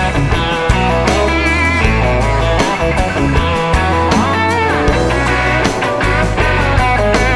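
Country-rock song in an instrumental stretch between sung lines: guitar over a steady bass and drum beat.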